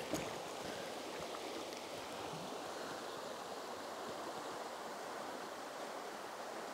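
Steady rush of river water flowing over a stony riffle, even and unbroken.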